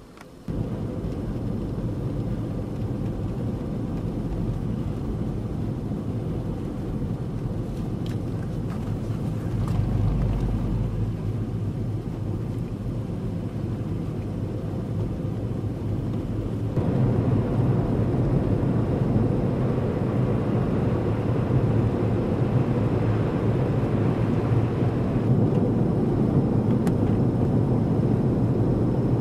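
Strong winter-storm wind rushing over the microphone, a steady low rumbling noise that gets louder about two-thirds of the way through.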